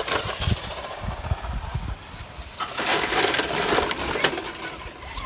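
Radio-controlled car driving over rough ground: irregular clatter and knocks, with a longer spell of gritty noise from about three to four seconds in.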